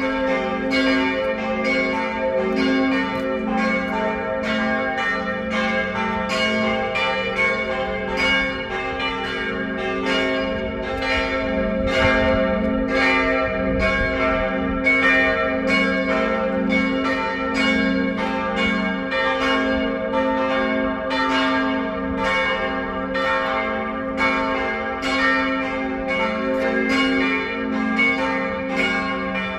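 Church bells of a Catholic church ringing a continuous peal, several bells striking at uneven, overlapping intervals over their long ringing tones.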